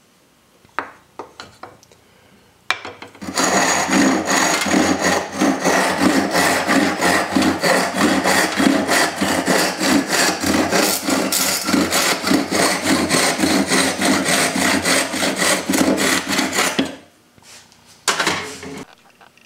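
Hand saw cutting through a small block of wood in rapid, even back-and-forth strokes for about fourteen seconds. A few light wooden knocks come before it, and a short scraping burst follows near the end.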